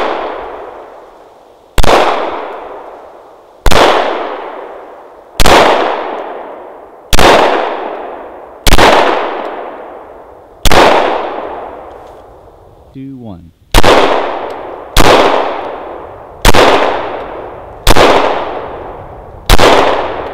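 Ruger semi-automatic pistol fired slowly and steadily, eleven shots about one and a half to two seconds apart, with one longer pause about two-thirds of the way through. Each loud crack rings out and dies away over a second or more.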